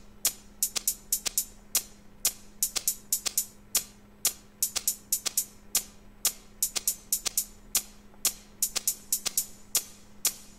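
Programmed drum-machine hi-hat pattern from Native Instruments Maschine: short, bright hat hits in a fast, slightly uneven loop, about five or six a second, played through a reverb on the group, with a faint steady low hum underneath.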